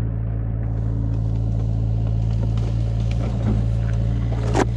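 An engine running steadily with a low, even drone, over rustling and brushing noise; one sharp snap or knock near the end.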